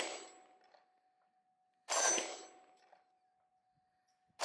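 Glock 43X 9mm pistol firing slow, single shots: the tail of one shot at the start, a shot about two seconds in, and the next just at the end, each dying away over about a second.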